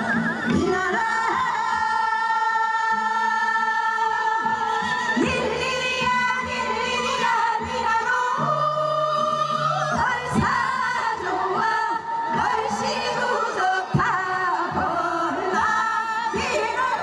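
A group of women singing a Gyeonggi minyo (Korean folk song) together into microphones over amplified backing music, with long held notes and a few sharp percussive strikes.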